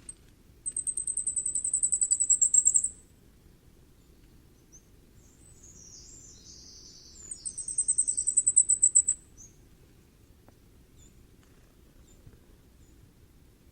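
Common firecrest singing: two songs, each a rapid run of very high, thin notes that grows louder toward its end and lasts about two seconds. The second song starts about seven seconds in. A fainter, lower twitter comes just before it.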